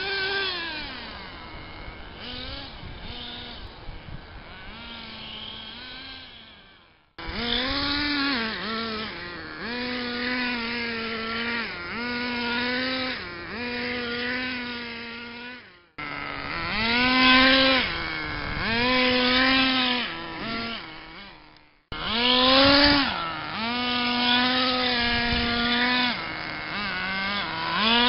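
Exceed nitro R/C truck's small two-stroke glow engine revving up and down again and again, holding a high, steady pitch between short drops in revs. The sound cuts off abruptly three times and picks straight up again.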